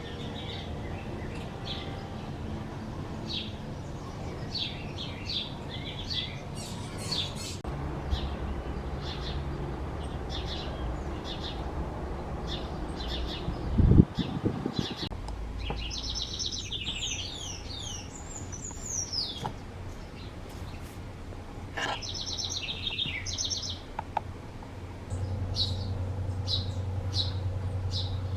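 Small wild birds chirping, short high notes repeated again and again, with two fast twittering runs in the second half. A single thump about halfway through is the loudest sound, and a low steady hum comes in near the end.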